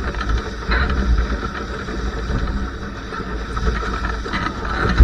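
Wind buffeting the microphone and water rushing along the hull of a Laser 2 sailing dinghy under way in strong wind: a steady low rumble with a hiss over it.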